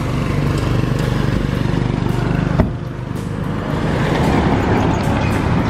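Motor vehicle engine running steadily. A sharp click comes a little past halfway, then a vehicle passes close by, its engine and tyre noise rising over the last second or two.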